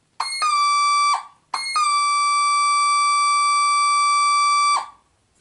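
Casio DH-100 digital horn, a unit with a squawk fault, sounding two synthesized notes: a short one of about a second, then one held for about three seconds. Each note opens with a quick step down in pitch before settling on a steady tone.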